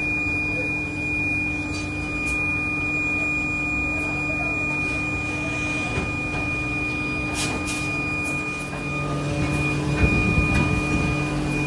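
Steady hum of workshop machinery with a constant high-pitched whine. A few light metallic clinks and rattles come in the second half, as the bundle of steel rods is handled.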